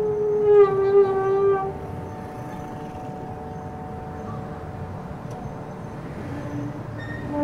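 A horn sounds a long tone for about a second and a half. A lower horn tone begins near the end and grows loud, over a steady low background rumble.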